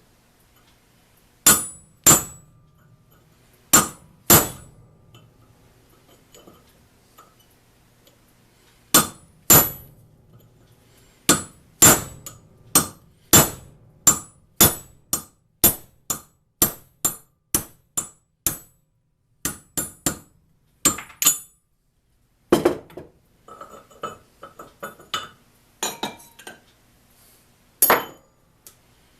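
Hammer blows on a steel rivet-heading punch, heading rivets, each strike a sharp metal-on-metal knock with a bright ring. Two pairs of blows come first, then a steady run of strikes about every 0.6 seconds, then lighter clinks of metal being handled and one last blow near the end.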